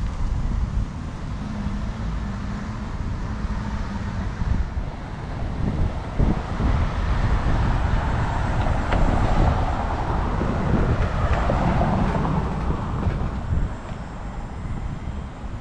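Street traffic with a steady low rumble. A passing car's tyre and engine noise swells from about six seconds in, is loudest past the middle, and fades near the end.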